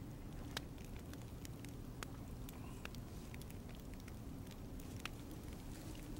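Small open fire crackling, with scattered sharp irregular pops over a low steady hum.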